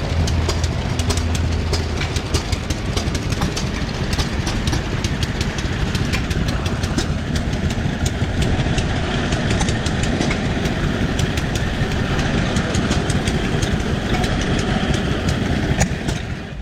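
Old machinery running steadily with a rapid, uneven clatter of clicks and knocks. It stops abruptly near the end.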